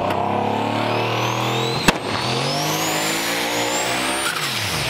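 A turbocharged car engine running at low revs, its pitch dipping near the end. A thin high whine rises and then falls over it, and there is one sharp click about two seconds in.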